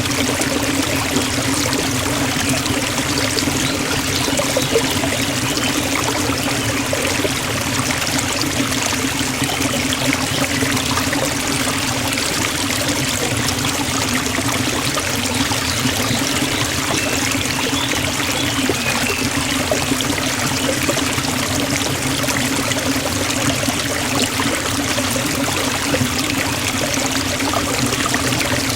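Forest waterfall: falling water rushing steadily, an even, unchanging roar.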